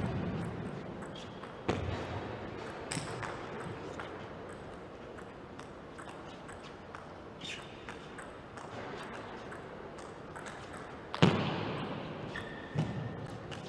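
Table tennis rally: the ball clicking off rackets and the table at irregular intervals in a long defensive exchange, with one much louder knock about eleven seconds in.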